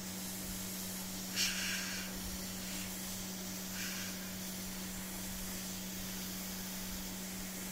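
Steady airy hiss of an SMD hot-air rework gun blowing at about 350 onto a motherboard's PCH chipset, reflowing it for suspected dry solder behind a no-display fault. A steady low hum runs under it, and two short breathy swishes come about a second and a half and four seconds in.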